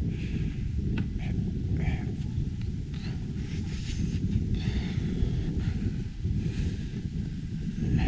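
Wind buffeting the microphone: a dense, unsteady low rumble, with faint brief higher sounds coming and going over it.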